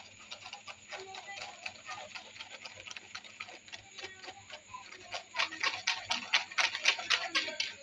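Metal spoon scraping and tapping against a stainless steel mesh strainer as blended plum pulp is pressed through it. The strokes are faint at first, then turn into a fast, louder run of scrapes about five seconds in.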